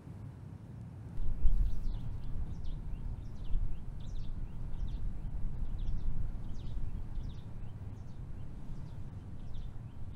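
A low rumble sets in suddenly about a second in and keeps going. Over it, a small bird gives short, high, falling chirps again and again, a couple each second.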